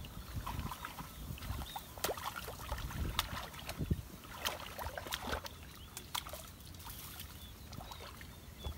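Shallow muddy water sloshing and splashing as hands and knees work through it, with irregular wet slaps and small knocks.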